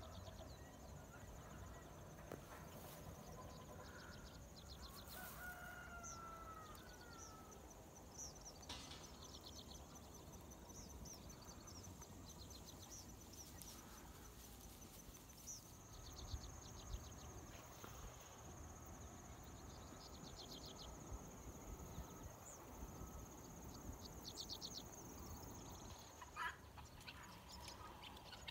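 Faint field ambience: insects trilling in quick repeated bursts over a steady high insect buzz, a few distant bird calls, and a low rumble of light wind.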